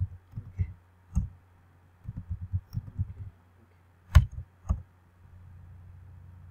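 Computer keyboard keys being typed in short runs of taps, with two sharper key strikes about four seconds in. A steady low hum comes in near the end.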